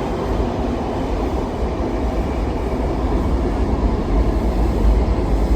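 Washington Metro train running, a steady low rumble and rail noise heard from inside the car, growing slightly louder toward the end.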